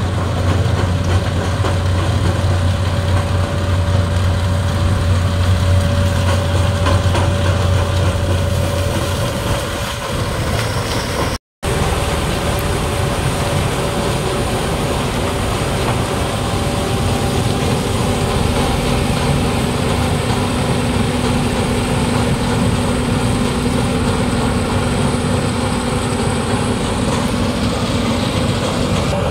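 Diesel engines of a Case IH sugarcane harvester and a New Holland 3630 tractor running steadily under load while harvesting cane. A deep low drone fades out about nine seconds in, and the sound breaks off for an instant about eleven seconds in before the steady machine noise resumes.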